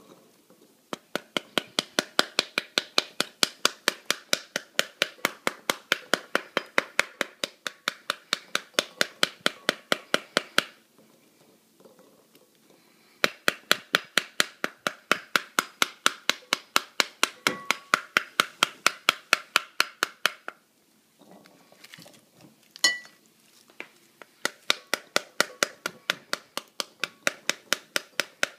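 A metal spoon rapidly tapping the rind of a split pomegranate, about four sharp knocks a second, in three runs with two short pauses, to knock the seeds loose.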